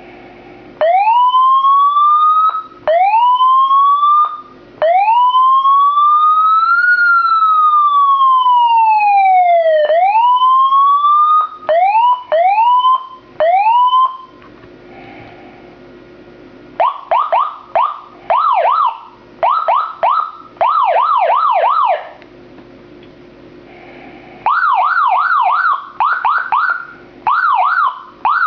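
Electronic police siren module sounding in separate loud blasts. It starts with three rising whoops, then gives one long rise and fall and a few quick rising chirps. After that come bursts of rapid up-and-down yelping sweeps, switched on and off several times.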